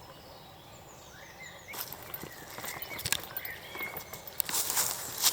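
Small birds chirping, then irregular crunching footsteps and rustling that start about two seconds in and get louder near the end.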